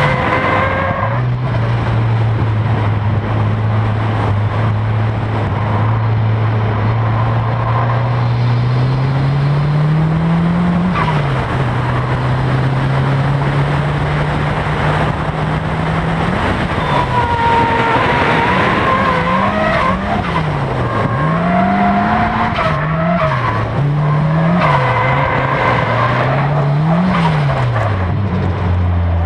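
Nissan Silvia S13's SR20DET turbo four-cylinder engine running hard on track, its revs climbing slowly for the first ten seconds, dropping sharply, then swinging up and down again and again in the second half. Tyres squeal in the middle of that stretch and near the end, as the car slides through corners.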